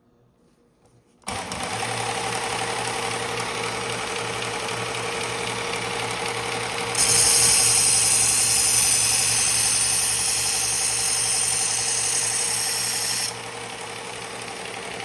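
Electric knife-sharpening machine switching on about a second in and running with a steady hum. From about halfway to near the end, a chef's knife edge is ground against it at 17 degrees, adding a loud high hiss, and then the motor runs on alone.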